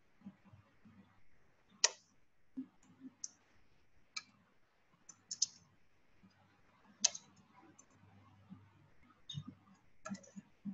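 Computer keyboard keystrokes: sparse, irregular clicks with short pauses between them, a few sharper than the rest.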